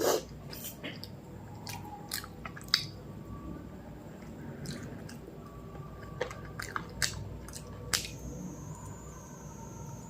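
A person chewing food close to the microphone: wet chewing with scattered sharp clicks and smacks, a cluster of them a little past the middle.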